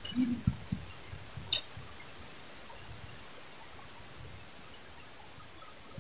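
Two short, sharp handling noises, one at the very start and one about a second and a half in, as a small tilapia on a fishing line is held and unhooked; after them only a faint steady outdoor background.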